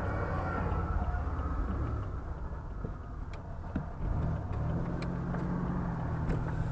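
Vehicle engine running while driving, heard from inside the cab as a steady low hum. The engine note rises and firms up about four and a half seconds in as it picks up speed.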